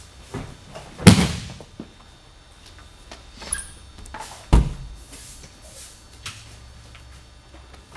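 Judo breakfall: the thrown partner's body and slapping arm hitting the tatami hard about a second in, then a second heavy, deep thud about four and a half seconds in, with faint footsteps on the mat between.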